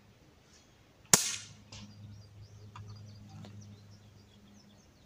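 Barra 1866 lever-action BB gun firing a single shot, a sharp crack about a second in, followed by a few faint clicks.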